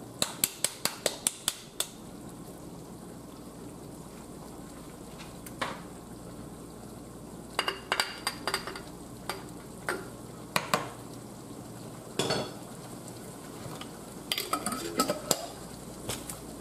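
Glass pasta-sauce jar tapped and shaken upside down over a pan to empty it: a quick run of sharp knocks early on the jar, then scattered clinks and knocks. Under them, a low steady sizzle from the pan cooking.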